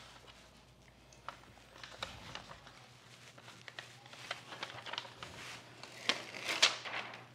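Handling of a coarse-grit liner strip on a wooden vise jaw: scattered light clicks, taps and rustling as it is handled and pressed into place, with a louder cluster of sharp ticks and rustle near the end.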